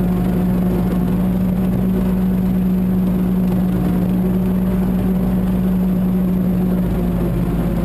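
Mahindra 1526 tractor's diesel engine running at a steady speed.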